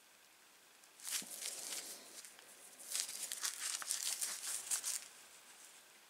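Knit work gloves scraping and rustling against the rough rusted handles of old UNIOR end-cutting pincers as they are strained open, in two bursts, about a second in and from about three to five seconds. The pincers are seized with rust and do not open.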